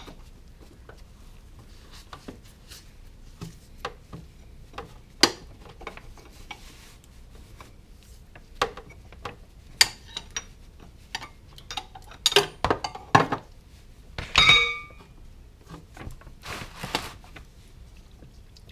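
Metal oil filter wrench clicking and clinking against the oil filter and engine underside as it is fitted and turned to loosen the filter. The clicks come scattered and sharp, with a busier cluster about two-thirds through, one of which rings briefly like struck metal.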